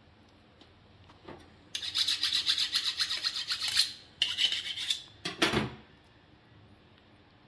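A kitchen knife's blade rasping in three bursts of quick scraping strokes, the first about two seconds long and the others shorter, each stopping abruptly.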